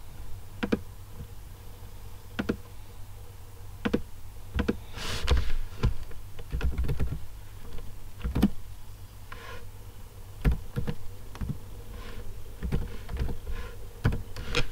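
Computer keyboard and mouse clicks: scattered single clicks, with a short run of typing about midway. A steady low hum runs underneath.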